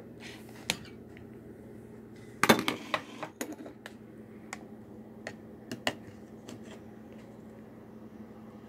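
A metal fork clinking and knocking against a cup and bowl while egg yolk batter is mixed and moved: a quick cluster of knocks about two and a half seconds in is the loudest, followed by scattered single clinks. A steady low hum runs underneath.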